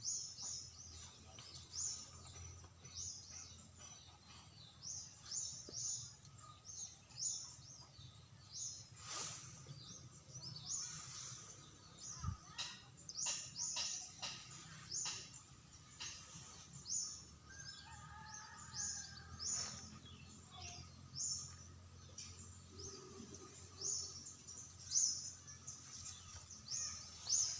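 Birds chirping over and over, short high chirps in quick runs throughout, over a steady low background hum, with a few sharp clicks around the middle.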